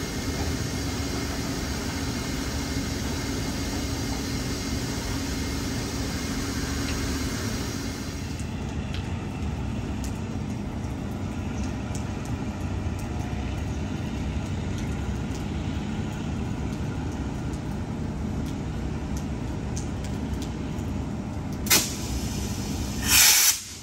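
Cement hopper wagons rolling away over the track with a steady rumble, which drops after about eight seconds to the lower steady hum of a Taiwan Railway E300-class electric locomotive standing with its equipment running. Near the end come two loud bursts of hiss, a short one and then a longer one.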